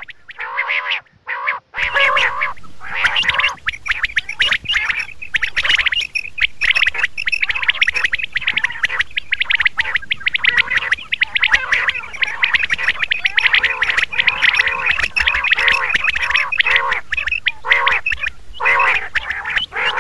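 Common quail calling over and over in quick, dense repeated squawking calls, after a short break near the start.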